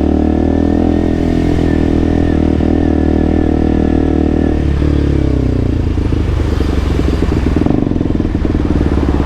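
KTM RC 200's single-cylinder engine running at a steady speed, then its revs dropping about five seconds in to a lower, pulsing note.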